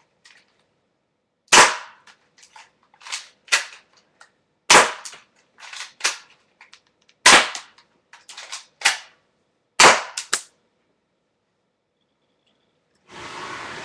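Crosman Stinger P36 spring airsoft pistol firing four sharp shots about two and a half seconds apart, with quieter clicks and knocks between them. A short rustle lasting about a second comes near the end.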